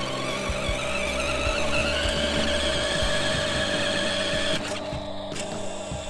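Remote-control toy garbage truck's small electric drive motor whining steadily as the truck drives, with a low rumble of its wheels on concrete. The whine rises a little about two seconds in, and its higher part cuts out about three-quarters of the way through.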